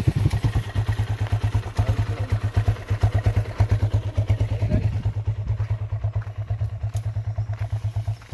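Motorcycle engine idling with a steady, even beat, growing a little fainter in the second half.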